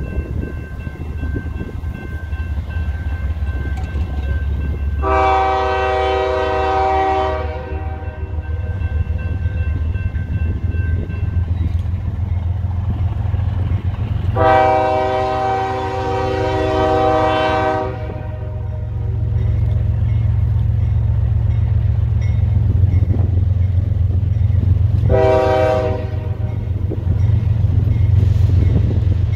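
Diesel locomotive horn of an approaching CSX freight train sounding two long blasts and then one short one, over the low, steady rumble of the locomotive and train, which grows louder as it nears.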